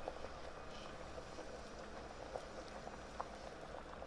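Pot of bean and sausage soup bubbling gently at a simmer, with a few soft pops of bursting bubbles over a faint steady hiss.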